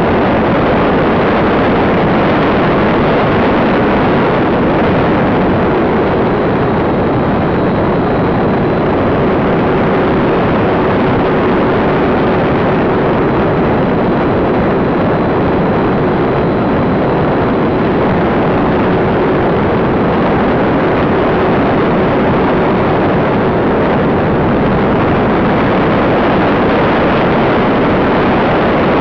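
Loud, steady rush of air over the microphone of a camera mounted on the tail of a flying radio-control model plane, with the plane's motors humming underneath. A faint steady tone runs through the first half.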